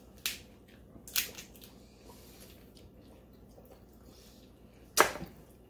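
A cooked crab's shell being pulled apart and the crab fat sucked out: a few short cracks and wet squishing eating sounds, with a louder sharp crack about five seconds in.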